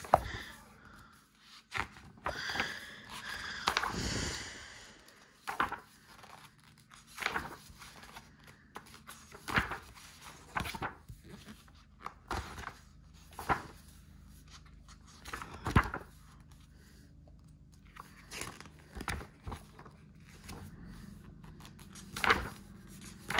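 Pages of a large art book being turned by hand, one after another: a short, crisp paper rustle and flap with each turn, every second or two, with a longer rustle a few seconds in.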